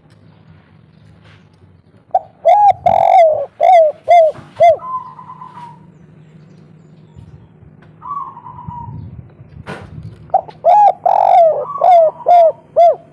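A spotted dove (tekukur) of the 'kuk 3' song type cooing. It gives two loud phrases, one early and one near the end, each a quick run of six or seven rolling coos.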